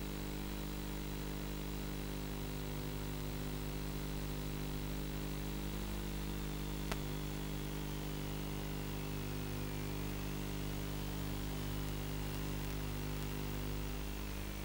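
Steady electrical buzzing hum with hiss on the FPV video downlink's audio. A faint high whine slides down in pitch over the second half, and there is one sharp click about seven seconds in.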